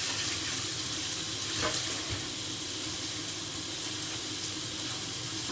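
Rump steak sizzling steadily in a hot pan, searing in its own rendered fat, with a light click about a second and a half in.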